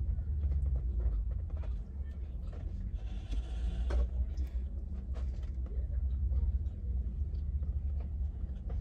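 Steady low rumble inside a parked car's cabin, with scattered small clicks and a short hissing rustle about three seconds in.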